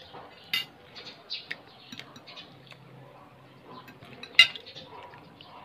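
Scattered light clicks and clinks of dishes at a table during a meal, the sharpest one a little past four seconds in.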